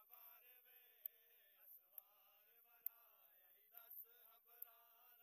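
Very faint men's voices chanting a noha in unison, with soft ticks about once a second.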